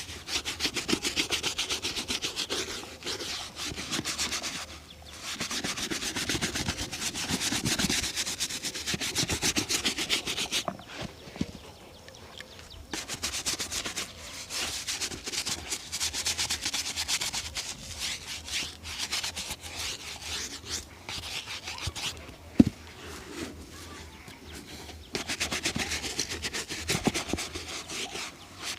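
A shoe being rubbed in rapid back-and-forth strokes during shoe shining, in spells of several seconds with short pauses. There is one sharp tap in a pause about three quarters of the way through.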